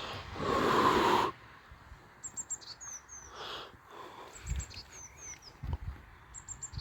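A loud rush of water or bubbling about half a second in, lasting under a second, followed by quieter repeated short, high, falling chirps and a few soft thumps.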